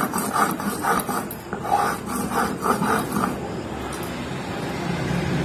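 A stone roller rubbed back and forth over a ridged stone grinding slab (sil batta), crushing dried red chillies and black pepper into masala. A rhythmic scraping at about two strokes a second turns into a steadier, smoother rub about halfway through.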